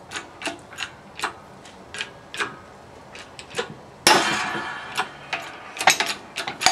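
A steel wheel stud being pressed out of a cast MGB hub in a shop press: a run of sharp metallic clicks at about two a second, then a loud crack about four seconds in as the stud breaks free, ringing briefly, followed by more clicks.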